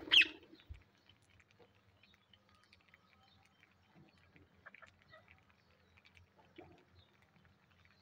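Rose-ringed parakeet giving one short, loud squawk right at the start, followed by faint scattered clicks of the flock's beaks pecking seed off concrete, with a few soft chirps.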